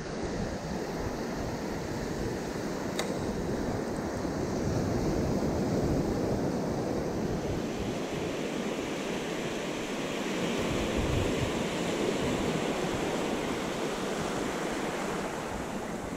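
Small waves breaking and washing up a sandy beach: a steady rush of surf and swash.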